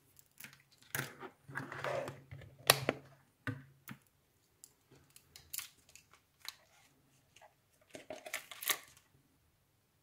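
Handling noise of bench electronics gear: irregular clicks, knocks and rustles as a digital multimeter and its probe leads are picked up and moved off a cutting mat, with the sharpest clicks about three seconds in and again near the end.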